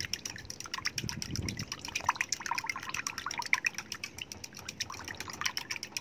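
Eggs and water being beaten in a cup: a utensil clicks rapidly and steadily against the cup's side, with the mixture sloshing.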